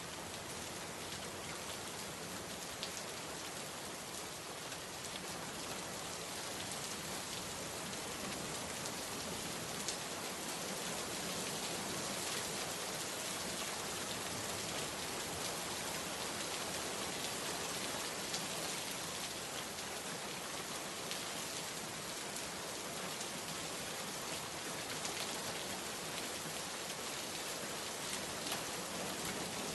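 Steady heavy rain: a dense, even hiss with scattered sharper drop impacts.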